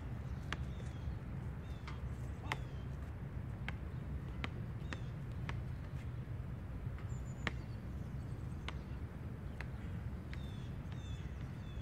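Outdoor park ambience: a steady low rumble, small birds chirping with short downward-sliding notes that come more often near the end, and a sharp tick every half second to a second.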